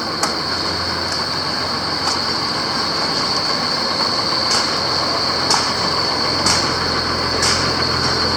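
Motor vehicle engine noise running steadily, with a constant high whine and light ticks about once a second.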